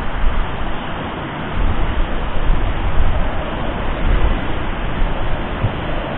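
Wind buffeting the microphone: a steady rushing hiss with uneven low rumbling gusts.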